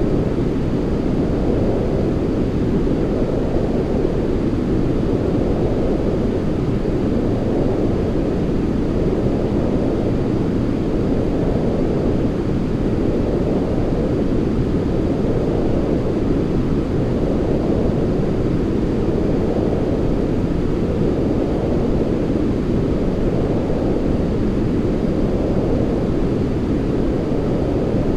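Steady deep rushing noise of a white-noise sleep track, weighted to the low end, with a gentle swell every two to three seconds.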